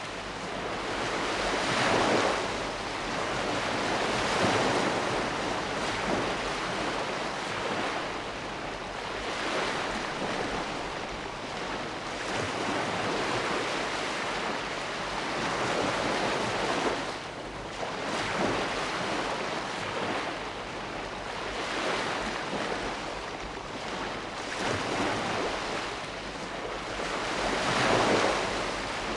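Sea waves breaking and washing on the shore, a continuous surf noise that swells and falls every few seconds.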